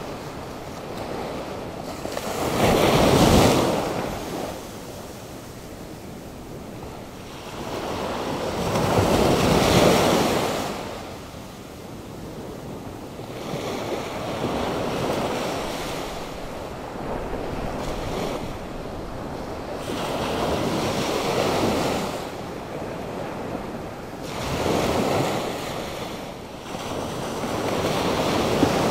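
Atlantic Ocean surf stirred up by a hurricane: waves breaking one after another, each a loud rushing surge that swells and fades, about every five or six seconds, over a constant wash of water and wind.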